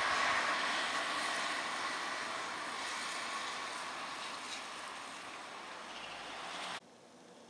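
Storm wind and surf, a steady rushing noise that eases a little and then cuts off suddenly near the end.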